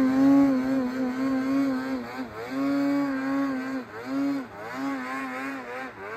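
Polaris 9R two-stroke snowmobile engine revving up and down over and over as the sled pulls wheelies through deep powder, growing fainter as it rides away.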